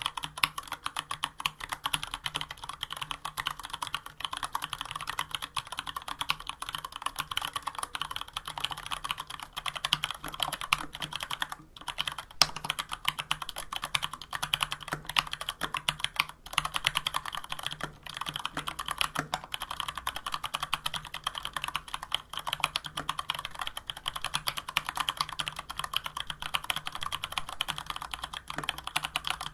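Continuous fast typing on a Varmilo VA104M mechanical keyboard with stock, unlubricated Cherry MX Brown switches and PBT keycaps: a dense run of keystroke clacks, with brief pauses about twelve and sixteen seconds in.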